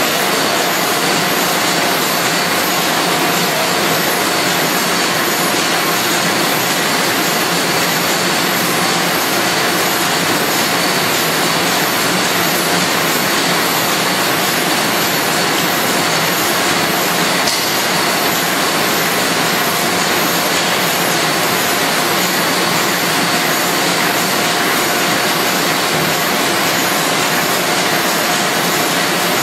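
Automatic pocket envelope making machine running steadily: a continuous, even mechanical noise with a few faint high steady tones in it.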